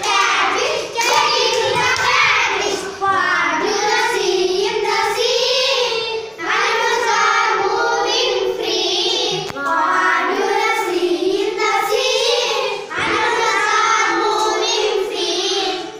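A group of young children singing a rhyme together in unison, in short phrases of one to three seconds with brief breaks between them.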